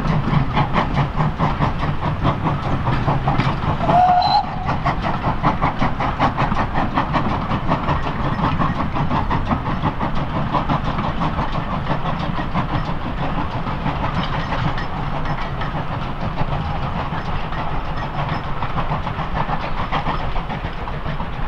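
Steam locomotive running, its exhaust beating fast and steadily under a steam hiss, with a brief high tone about four seconds in.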